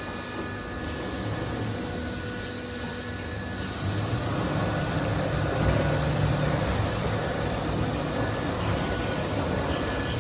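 CIMC1370 ATC CNC router running: steady machine noise with a low hum and a faint high whine, getting louder about four seconds in.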